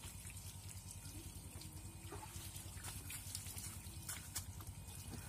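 Light splashing and dripping of water in a plastic tub as a small child dips a rag and lifts it out, with a few small clicks, over a steady low rumble.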